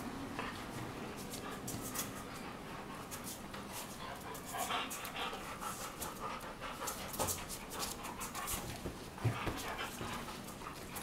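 Two Weimaraners play-fighting: panting and scuffling, with many quick clicks as they move about on a tiled floor.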